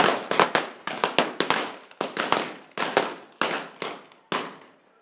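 Blank rounds fired from guns in a staged Old West gunfight: a rapid, uneven volley of a dozen or more sharp shots, each with a short echo. The shots thin out, and the last comes a little after four seconds in.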